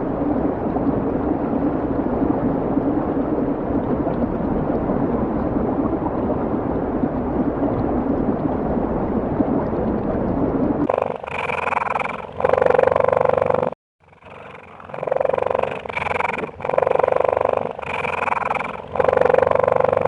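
Animal calls from two clips: a continuous rough sound with a low steady tone for about the first half, then, after a cut, a string of about six short calls, each about a second long.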